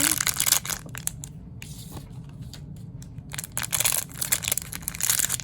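Small toy packaging bags being crinkled and torn open, in two spells of rustling: a short one at the start and a longer one from about three and a half seconds in.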